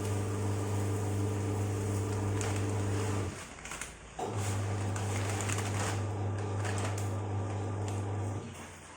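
A steady low hum that cuts out for about a second a little over three seconds in, starts again, and stops near the end.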